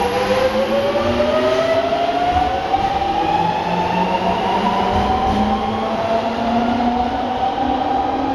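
GTO-thyristor VVVF inverter of a Nankai Koya Line electric train whining as the train accelerates away. The whine drops in pitch at the start, then climbs steadily and smoothly, with a lower tone rising beneath it over the rumble of the running train.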